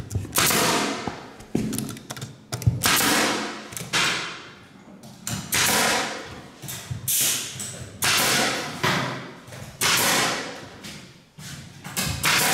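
Pneumatic floor nailer firing nails through solid parquet boards into the plywood subfloor. It fires about a dozen shots, roughly one a second, each a sharp thud followed by a short fading hiss. The boards are being fixed down at about every 20 cm over the glue.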